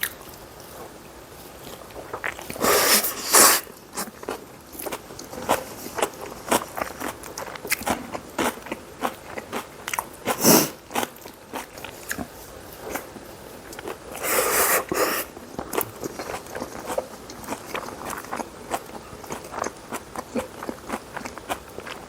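Close-miked eating of Chinese-Korean noodles and rice: steady wet chewing with many small mouth clicks and smacks. Three louder sounds about a second long come about three, ten and fourteen seconds in.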